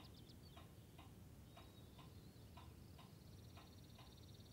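Clock ticking faintly and evenly, about two ticks a second.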